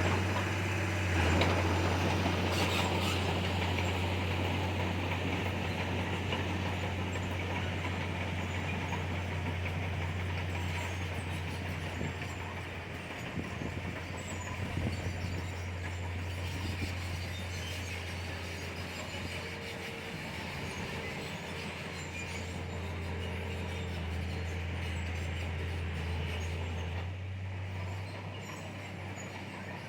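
Komatsu bulldozer's diesel engine running steadily under load, a continuous low drone with a rattling mechanical noise over it, easing slightly in level toward the end.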